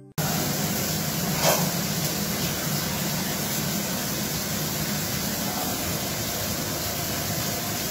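Fish pieces frying in oil in a pan, giving a steady, even sizzle, with one brief knock of a utensil about a second and a half in.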